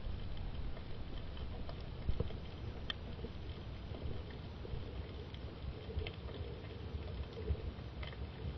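Steady water noise with a low rumble and scattered light clicks and ticks.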